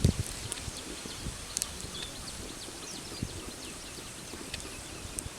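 Small birds chirping in short, high, downward-sliding calls scattered through the outdoor background, with a dull low thump right at the start.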